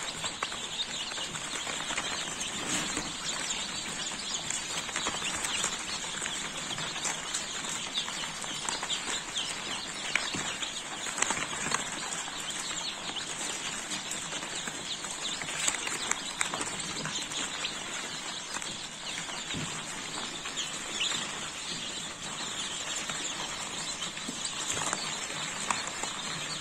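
Dense, continuous chorus of peeping from a large flock of newly arrived chicks, many high calls overlapping at a steady level.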